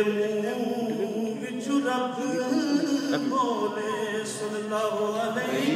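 A man reciting a naat, unaccompanied devotional singing, amplified through a microphone, with long held notes that waver in pitch.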